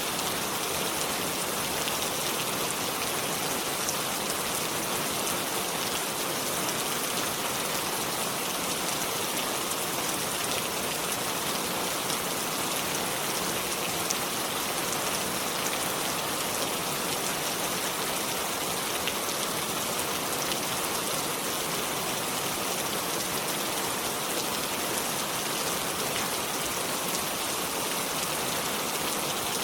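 Steady rain falling, an even dense hiss of many drops, with faint individual drop ticks.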